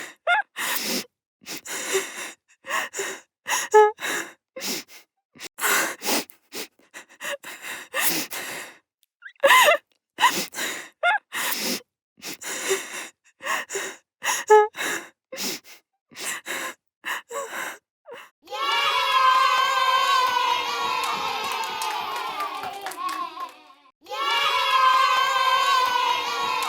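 A person gasping over and over, short sharp breaths in quick succession. Then, about 18 seconds in, many voices together in a long falling sound, twice, with a brief break between.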